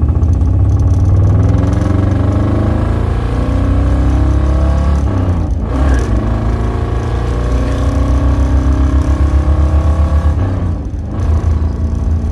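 A 1968 Camaro's 396 big-block V8 with chambered exhaust accelerating through the gears, heard from inside the cabin: the engine note rises, breaks for a shift about five and a half seconds in, rises again, and breaks for a second shift near the end.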